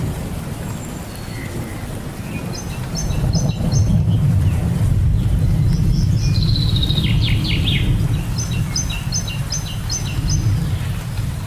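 Steady rain with a low rumble of thunder that swells about three and a half seconds in, while songbirds call over it: runs of quick repeated chirps and a falling trill around the middle.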